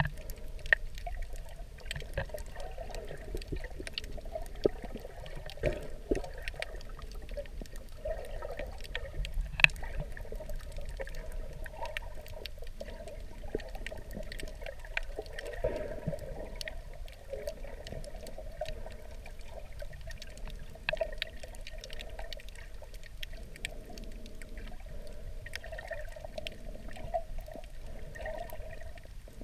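Water sloshing and washing over a shallow coral tide pool, heard underwater, with many scattered sharp clicks throughout.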